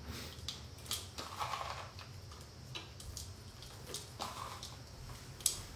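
White chocolate being broken by hand into small pieces over a bowl: faint, irregular snaps and clicks with soft rustling, and a sharper click near the end.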